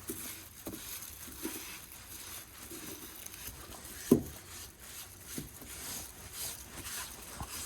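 Applicator pad rubbing trim restorer into a Jeep's plastic trim: soft, uneven scrubbing and scuffing strokes, with one sharp knock about four seconds in.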